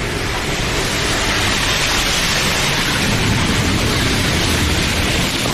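Heavy tropical rain pouring down, a loud steady hiss.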